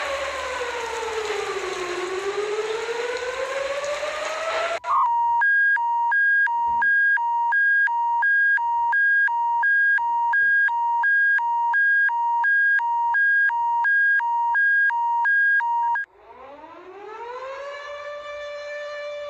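Emergency alarm sounds in sequence: a siren wailing down and back up in pitch over a hiss, which cuts off about five seconds in to a loud alternating high-low two-tone alert beep, about two cycles a second. Near the end a siren winds up in pitch and settles on a steady tone.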